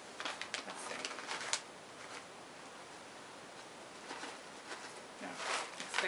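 Snack pouch crinkling and rustling as it is opened, for about a second and a half, then stillness; near the end a short hum-like voice sound from one of the eaters.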